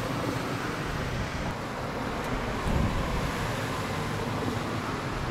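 Car driving at a steady speed: even road and engine noise heard from inside the cabin.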